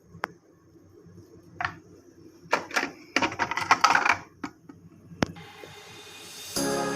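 Scattered sharp clicks and short bouts of clattering, the busiest about two and a half to four seconds in, with one hard click shortly after five seconds. Background music fades in near the end.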